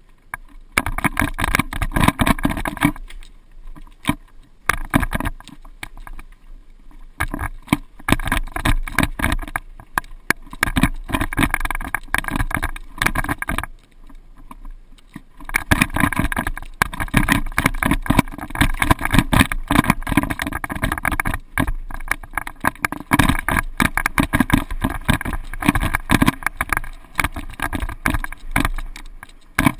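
Mountain bike riding a rough dirt singletrack: a dense, continuous clatter of rattles and knocks as the bike runs over bumps and stones, easing off briefly a few times.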